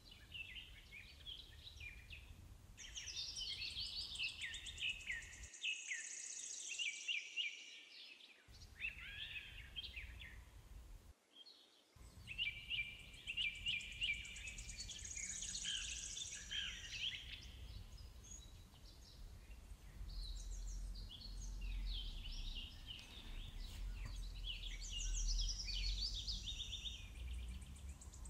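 Several birds singing, a busy mix of chirps and warbling trills coming and going throughout, over a faint low rumble that grows a little from about twenty seconds in.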